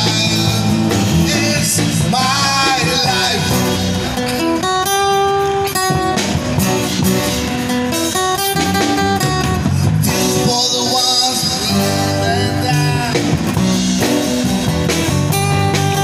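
Live street band playing a song: vocals over strummed acoustic guitars and a drum kit, heard through the band's microphones and amplifiers.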